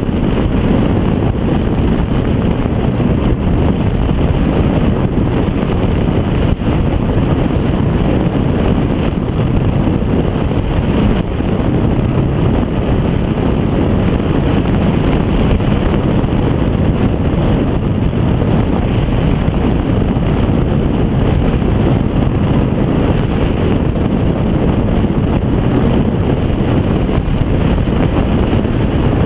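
Heavy, steady wind noise buffeting the microphone on a motorcycle at road speed. The bike wears a short windscreen that lets a lot of wind around the rider.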